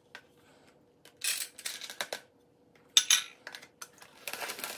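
Cashews tipped from a steel bowl clattering into the plastic drum of a hand-cranked rotary nut grater, in three short bursts. Near the end the crank starts turning and the drum begins grinding the cashews with a steady scraping rattle.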